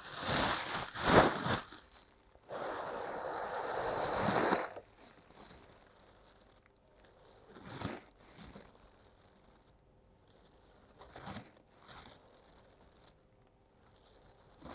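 A person takes a deep breath and blows it out into a bag, a steady hiss of a couple of seconds. Then comes slow, quiet breathing in and out of the bag, which crinkles faintly now and then. This is rebreathing into a bag to raise carbon dioxide and calm the diaphragm against hiccups.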